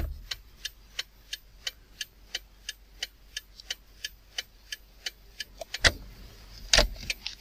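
Steady mechanical ticking, about three clicks a second, followed by two louder knocks near the end.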